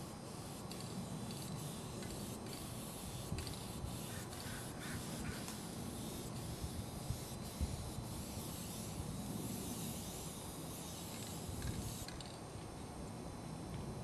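Aerosol spray-paint can hissing in many short bursts against a steady background hiss.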